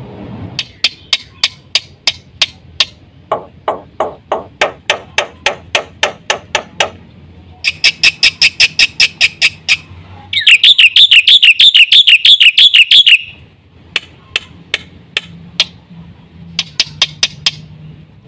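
Black-winged starling (jalak putih) singing: runs of sharp repeated notes at about five a second, broken in the middle by a loud, fast warbling trill lasting about three seconds.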